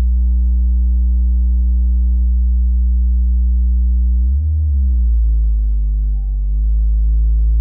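Loud low hum of a microwave oven transformer driven by an audio amplifier with a sine wave at around 55 Hz, with a buzzy series of overtones. About halfway through the pitch swings up and back down, sits lower for a couple of seconds, then returns as the sine-wave frequency is tuned.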